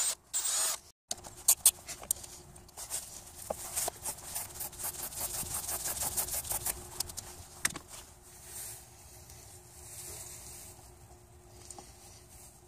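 Light clicks and rattles of a copper battery terminal clamp and its small bolt and nut being handled and fitted onto a battery post by gloved hands, densest in the first half and thinning out later. At the very start a brief bit of the cordless drill that reamed out the clamp's hole, cut off by an edit.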